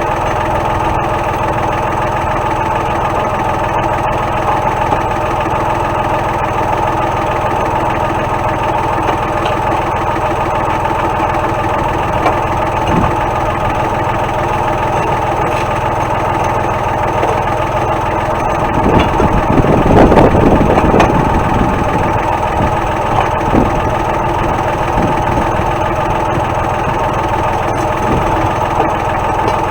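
Tractor engine running steadily at idle, with a brief louder, rougher swell about two-thirds of the way through.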